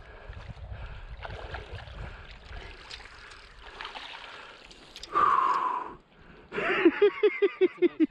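River water splashing as a landing net scoops up a thrashing brown trout, with a loud rush of noise about five seconds in. Near the end, a rapid run of excited vocal pulses, about six a second.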